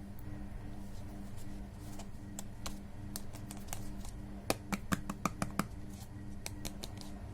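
Hands handling plastic candy and toy packaging: scattered light clicks and taps, with a quick run of about six sharper clicks a little past halfway.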